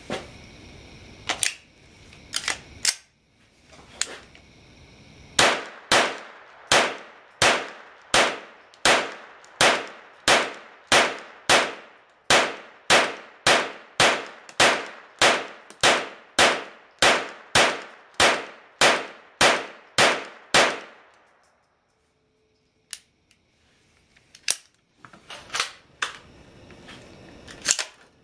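Gunshots from a 7.5-inch-barrelled AR-15 pistol (PDW). A few scattered shots come first, then a steady string of about two dozen semi-automatic shots at about one and a half a second, each trailing off. After a pause of a few seconds, a few more shots come near the end.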